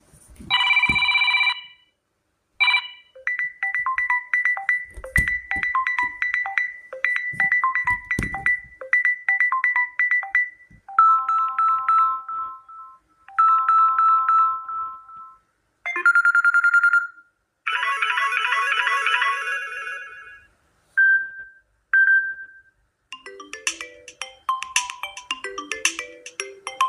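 Samsung Galaxy A01 Core ringtones playing one after another: several different short electronic melodies in turn, each a few seconds long, separated by brief pauses, with two single short beeps near the middle.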